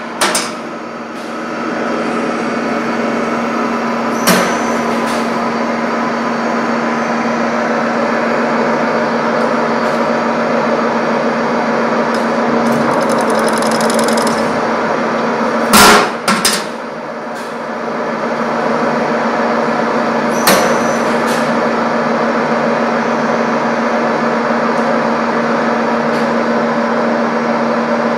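Thread-rolling machine for making studs running steadily with a constant hum as its two oiled rolling dies turn. A few sharp bangs cut through it, the loudest pair about 16 seconds in, half a second apart.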